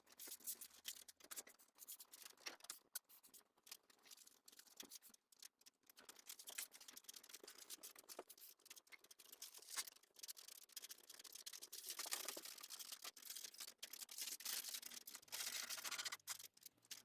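Faint, irregular scratching and light clicks of hand-tool work on wood.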